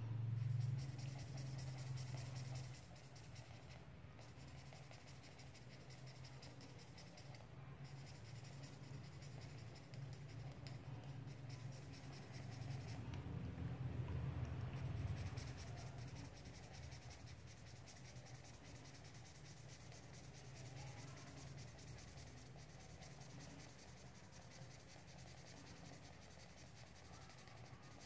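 Fine-tip marker pen scratching faintly on paper in short back-and-forth strokes as an area is coloured in solid black, over a steady low hum.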